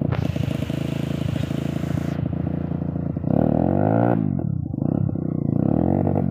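Trail motorcycle engine revving up and down repeatedly under load as the bike climbs a steep, muddy slope. A loud hiss runs with it for the first two seconds, then stops.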